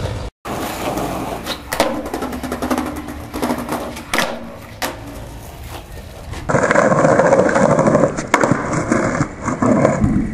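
Skateboard wheels rolling over concrete and paving, with several sharp wooden clacks from the board's tail popping and landing. The sound changes abruptly about six and a half seconds in, and more clacks follow.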